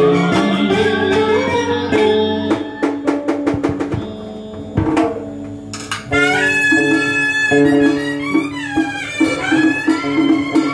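Southern Vietnamese traditional instrumental ensemble playing, with a wavering, sliding lead melody over plucked accompaniment. A quick run of sharp clicks comes about two to three seconds in.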